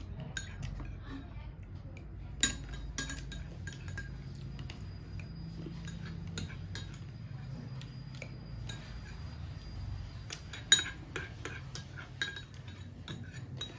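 Metal spoon clinking and scraping against a small glass bowl while stirring and scooping sour yogurt, in scattered taps with one sharper, louder clink about three quarters of the way through and quicker clinks after it, over a low steady hum.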